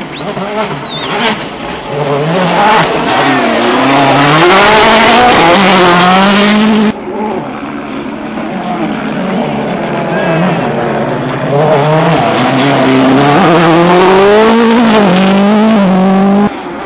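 World Rally Car's 1.6-litre turbocharged four-cylinder engine revving hard, its pitch climbing and dropping again and again through gear changes, as the car approaches and passes on a dirt stage. Two such passes are heard, each cut off suddenly.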